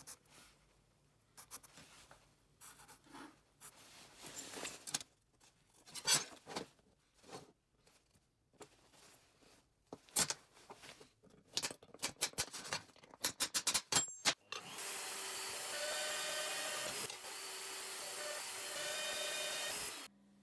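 For most of the clip there are scattered taps, scrapes and clicks: a marker pen, steel ruler and steel flat bar being handled on a metal workbench, with a quick run of sharp clicks near the middle. Near the end a power drill mounted in a Bosch drill stand runs steadily, boring through the steel flat bar. It dips briefly partway through and then cuts off suddenly.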